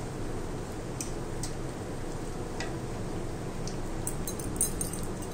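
Browned chhena balls frying in oil in a kadai over a gas burner: a steady low sizzle with scattered small pops and ticks, and a quick run of them near the end.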